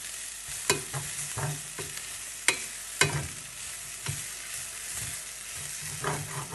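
Samosa filling of potato, carrot and onion frying in a pan with a steady sizzle, stirred with a utensil that knocks sharply against the pan a few times.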